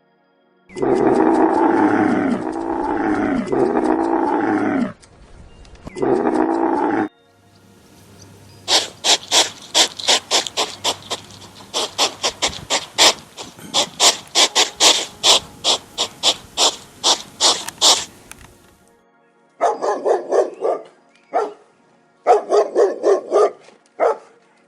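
A sequence of animal calls. First come several long calls that bend in pitch. Then about ten seconds of rapid sharp clicks, roughly three a second, and near the end some short pitched calls.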